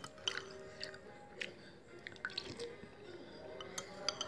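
Eating sounds as a person works through a bowl of sekoteng: irregular small clicks and wet sips and chews every half second or so, with faint music underneath.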